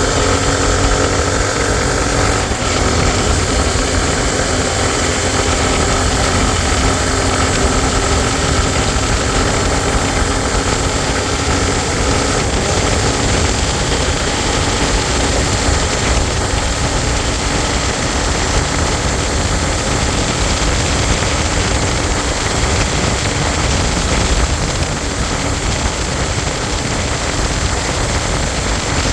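Honda XR250 Tornado's single-cylinder engine running steadily, with clear steady tones for the first dozen seconds that give way to a rougher, noisier sound.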